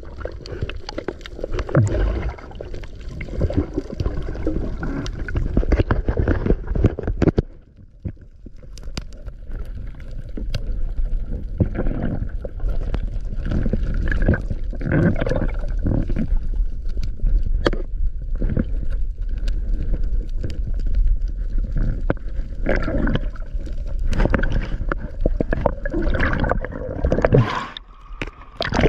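Sea water sloshing and gurgling against a small fishing boat, with scattered knocks.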